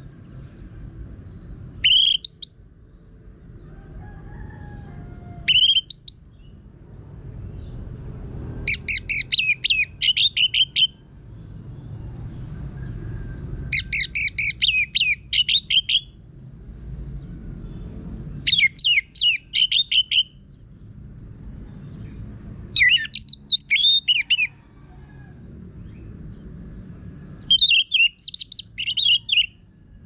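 Orange-headed thrush singing with a rough voice: two short rising calls, then five phrases of quick whistled notes, each about two seconds long, with pauses of a few seconds between.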